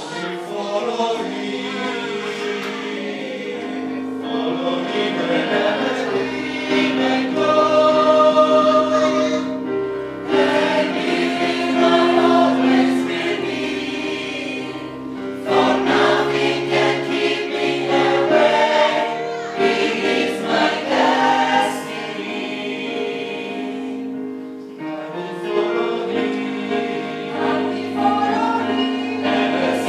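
Gospel choir singing, holding long chords that shift every few seconds.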